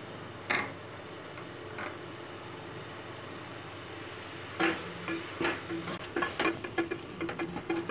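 A spatula stirring and scraping in an aluminium pressure cooker, with irregular scrapes and knocks starting a little past the middle. Beneath it, a steady low sizzle of tomato-onion masala frying in oil.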